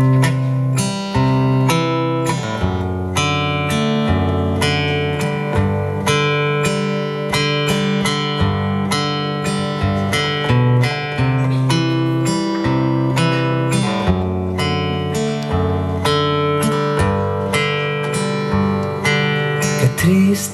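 Solo steel-string acoustic guitar playing an instrumental introduction, a steady run of plucked and strummed notes ringing on.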